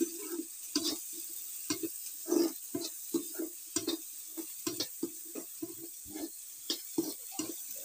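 A spatula scraping and stirring chopped onions around a kadhai, about three strokes a second, over a steady sizzle of the onions frying in oil.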